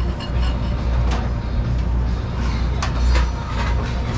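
Tools and metal parts clinking and knocking during a race-engine teardown: a few sharp clinks, about a second in and twice near three seconds, over a steady low hum.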